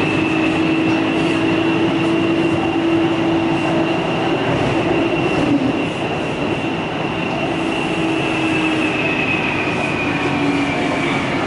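Taipei Metro C301 train's traction inverter and motors whining over the running noise of the car. A high steady tone sinks a little near the end, and a lower tone steps down in pitch in the second half, as the train slows. The uploader calls this inverter sound abnormal.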